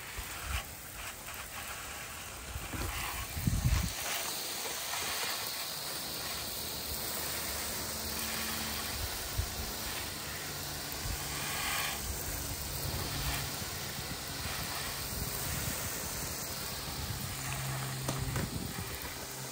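Water hissing steadily from a garden hose spray nozzle as it rinses a motorcycle, with spatter off the bodywork. A few low thumps come about three to four seconds in.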